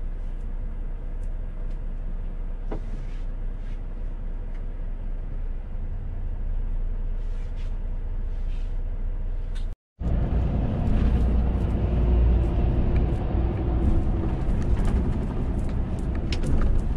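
Volvo truck on the move: steady low rumble of its diesel engine and road noise. It cuts out briefly about ten seconds in and comes back louder.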